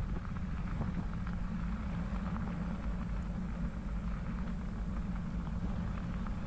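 Bicycle tyres rolling over a wet crushed-limestone trail: a steady low rumble with small crackles of grit.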